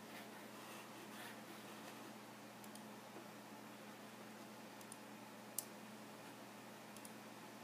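Near silence: room tone with a faint steady hum and a few small clicks, the sharpest about five and a half seconds in.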